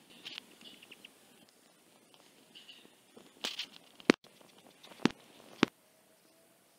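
Crunching steps in deep snow, faint and irregular, with three sharp loud clicks about four, five and five and a half seconds in.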